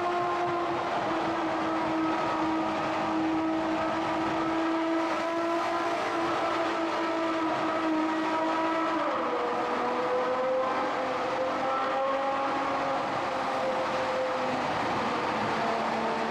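Ferrari F12 Berlinetta's V12 engine running at steady revs, heard from inside the cabin. Its note drops once, about nine seconds in, and then holds steady.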